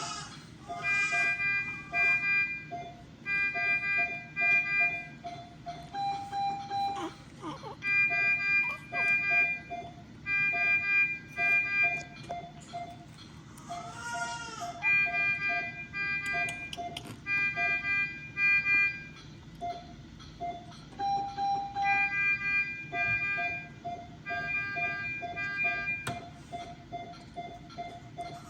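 Electronic alarm beeping: a lower tone pulses about twice a second while groups of three higher beeps repeat every two seconds or so. A brief newborn baby's cry breaks in about halfway through.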